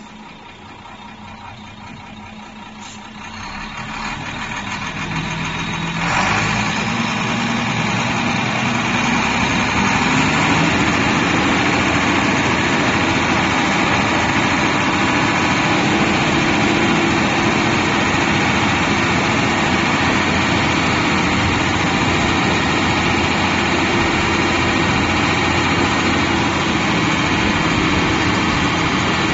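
Howo 6x4 tipper truck's diesel engine idling, then about six seconds in it speeds up and holds a steady higher speed while the hydraulic hoist raises the dump body.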